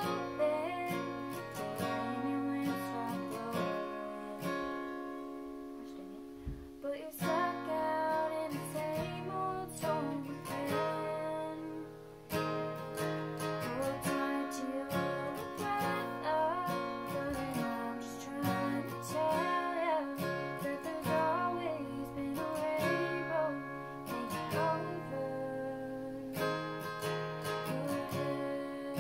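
Steel-string acoustic guitar strummed in steady chords, with a young woman singing along, her voice wavering above the chords. The strumming thins out briefly about twelve seconds in, then picks up again.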